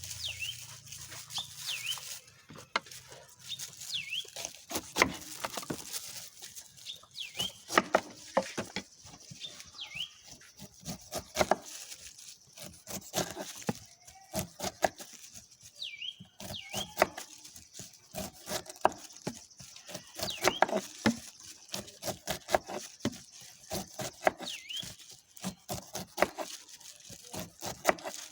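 A knife cutting and peeling a pineapple: repeated sharp cuts and taps, with birds chirping now and then in the background.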